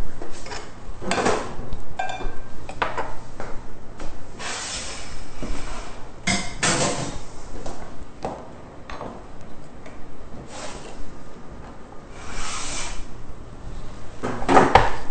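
Plates and utensils being handled and set down on a kitchen counter, with scattered knocks, clinks and rustling.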